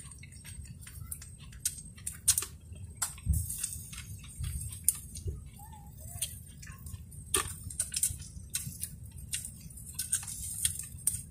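Two people eating grilled fish by hand: scattered small clicks and lip smacks of chewing and picking at the fish, over a low steady rumble.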